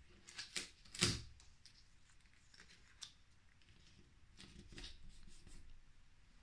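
Paper cutouts rustling and tapping as they are handled and pressed onto an easel board: a quick cluster of rustles and taps in the first second, the loudest about a second in, a single tick around three seconds, and a softer rustle near the middle.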